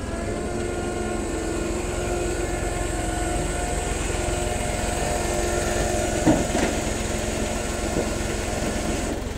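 Rollback tow truck's engine idling steadily, with a low throb and an even hum. A single short knock about six seconds in.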